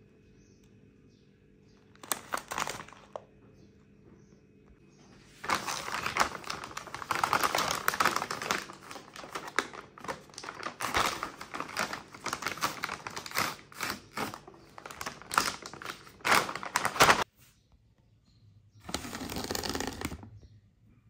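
Packaging of a muesli pouch crinkling and rustling as it is handled and opened by hand: a short burst about two seconds in, a long stretch of dense crackling from about five seconds to seventeen, and another brief burst near the end.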